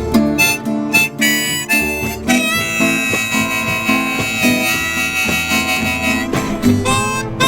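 Instrumental break in a live Americana song: a harmonica solo over a strummed acoustic guitar. It plays short notes, then holds one long note for about four seconds, then returns to short phrases.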